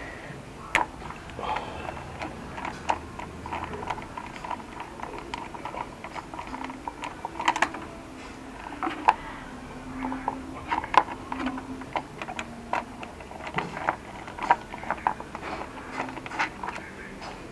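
Irregular small metallic clicks and taps of a hand tool on the bolts of a motorcycle's front sprocket cover as they are loosened and removed.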